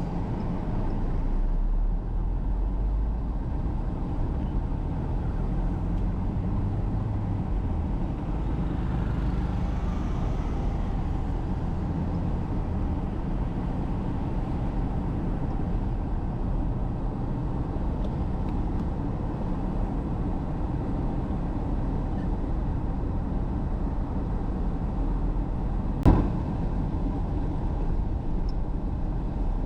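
Steady low rumble of engine and road noise heard from inside a moving car, with a single sharp knock near the end.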